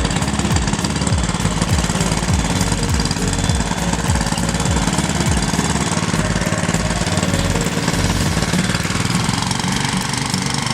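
Small go-kart engine running. Its pitch shifts up and down in the first few seconds, then settles steadier.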